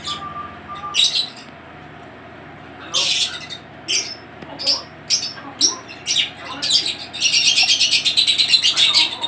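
Caged pet birds squawking with short, sharp calls about once a second, breaking into a rapid run of chattering for the last two seconds or so.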